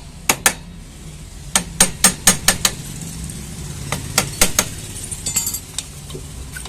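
Sharp metal-on-metal hammer strikes in quick groups of two to six, with a run of light rapid taps near the end, knocking at a jammed part of a TVS Jupiter scooter's clutch pulley assembly; the mechanic suspects this seized part is the cause of the chirping noise.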